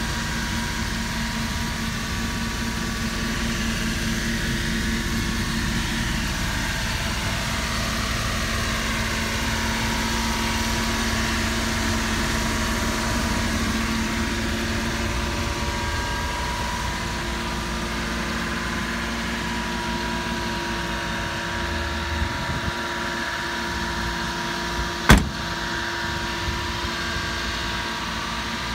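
Mitsubishi Minicab kei truck's small engine idling steadily, with one sharp knock near the end.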